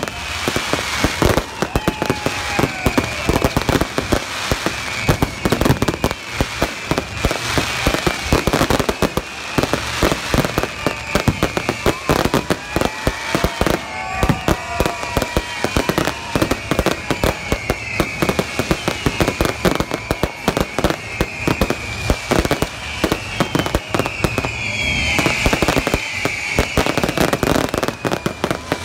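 Aerial fireworks going off in a dense, rapid barrage of bangs and crackling, with high wavering whistles running over it.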